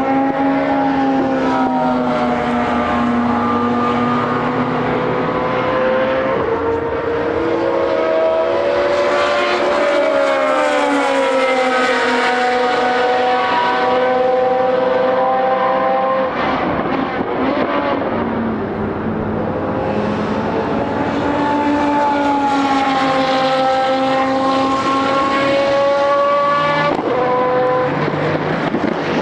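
Historic racing car engines running hard at high revs, several engine notes overlapping, each pitch sagging and climbing as the cars change gear and pass. The mix of notes shifts about halfway through and again near the end as different cars come by.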